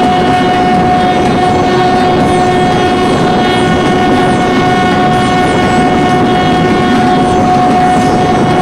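2 ft 6 in narrow-gauge passenger train sounding one long, steady horn blast over the rumble and clatter of its coaches running past. The horn cuts off near the end.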